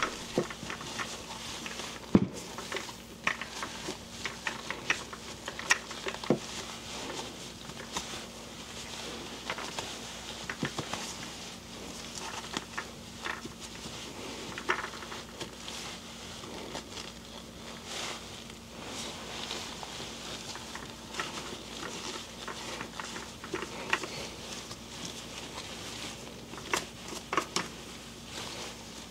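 Cloth rubbing and rustling over an opened geared hub motor as old grease is wiped off the nylon planetary gears, with many small clicks and knocks from the motor being handled and one sharper knock about two seconds in.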